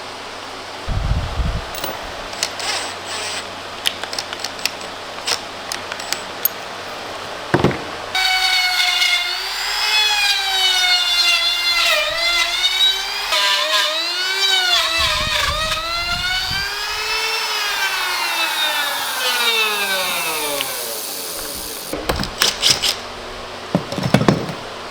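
Scattered knocks, then an electric power tool cutting into wood for about thirteen seconds. Its pitch wavers up and down as it is loaded, then falls steadily as the motor winds down after switch-off. More knocks follow.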